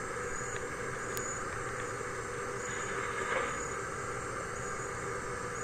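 Tractor running steadily with its forage harvester as it moves through standing maize: an even mechanical drone.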